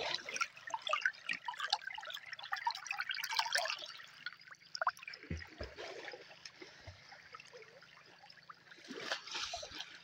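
Canal water trickling and lapping right against a phone held at the water's surface, with small drips and gurgles. It is busiest for the first few seconds, thins out, then picks up briefly near the end.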